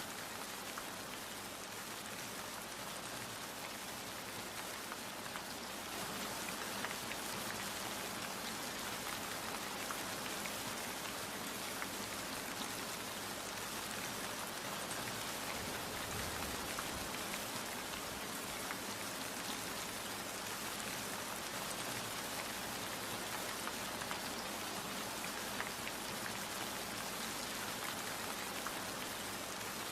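Steady rain falling, a dense even patter with individual drops ticking on a surface.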